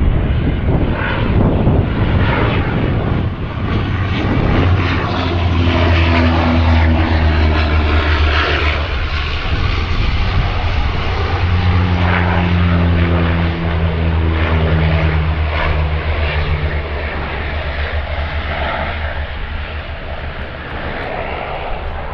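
Canadair firefighting water bomber's propeller engines running loud and steady, a deep drone with propeller tones that shift in pitch, easing off near the end.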